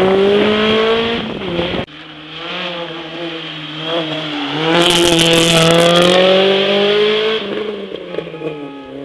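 Honda Civic rally car engine revving hard, its pitch climbing, then breaking off abruptly about two seconds in. A second Honda Civic rally car's engine then builds as it accelerates through the hairpin. Its pitch dips briefly around four seconds in, rises again, and fades near the end.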